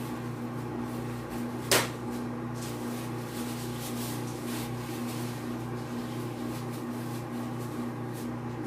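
Microwave oven running with a steady hum while it heats a bowl of chocolate to re-melt it, with one sharp click nearly two seconds in.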